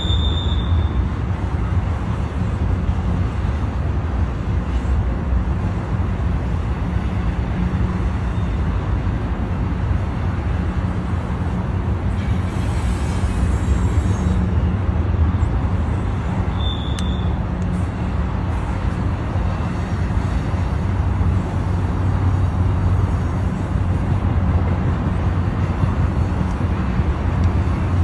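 Double-stack container freight train rolling past, a steady low rumble of wheels on rail joints and cars. A short high tone sounds once, a little past the middle.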